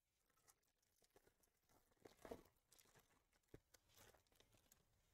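Very faint tearing and crinkling of a baseball card pack's foil wrapper being opened, in a few short rustles loudest about two seconds in, with a small click near the middle.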